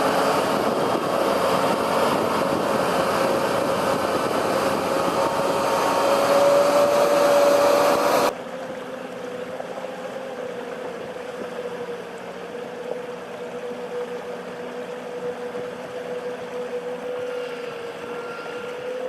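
Engine of a heavy log forwarder running steadily under load, with a steady drone. About eight seconds in it drops abruptly to a quieter, steady engine hum.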